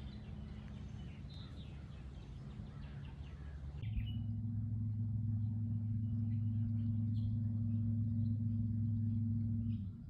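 Wild birds chirping over a faint low hum. About four seconds in, a much louder steady low hum sets in abruptly and holds until just before the end, with only scattered chirps above it.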